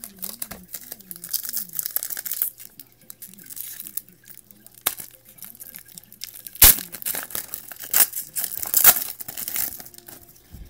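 A foil wrapper of a trading-card pack being torn open and crinkled, with the cards rustling and clicking as they are handled. There are sharp ripping snaps about two-thirds of the way in.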